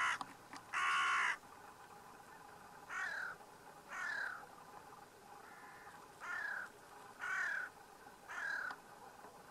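A crow cawing: one harsh caw about a second in, then a run of shorter calls, each falling in pitch, roughly one a second.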